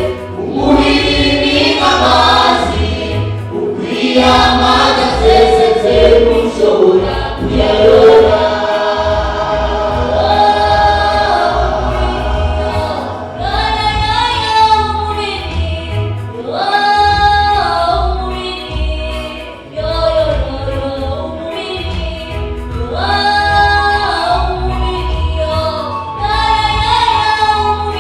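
Church choir singing a gospel song, many voices holding and moving through sustained notes together over a steady low pulse.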